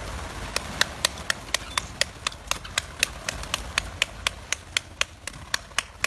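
A steady series of sharp ticks, evenly spaced at about four a second, starting about half a second in.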